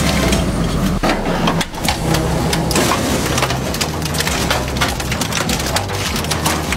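Twin-shaft industrial shredder running with a steady low hum while its toothed blades crush and tear a painted metal part, giving dense cracking and crunching.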